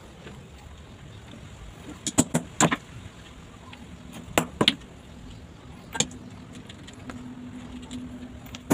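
Broken ceramic tile pieces clinking as they are set and tapped into place: a few sharp clicks, mostly in twos, spread a couple of seconds apart.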